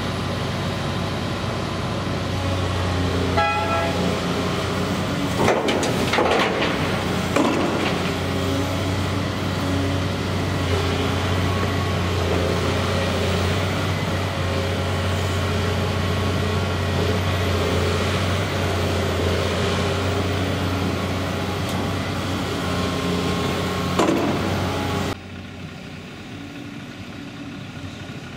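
Diesel engine of a Volvo EW160D wheeled excavator running steadily under load while it loads a Scania R560 tipper truck, with several crashes as buckets of dirt and stones are dumped into the truck's steel tipper body. About 25 s in the sound drops abruptly to a quieter engine running.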